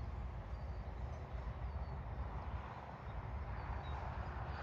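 Wind buffeting the microphone as a steady low rumble, with a few faint, short bird chirps over it.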